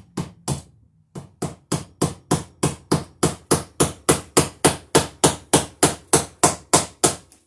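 Hammer blows on wood overhead: a few light taps, then a steady run of about twenty hard strikes, roughly three a second, that stop near the end.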